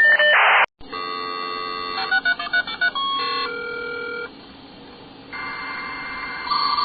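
Telephone sound effect: a steady dial tone, then a quick run of touch-tone keypad beeps about two seconds in, followed by further held call tones, with the thin sound of a phone line.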